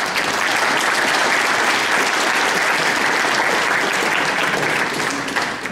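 Audience clapping steadily, dying away near the end.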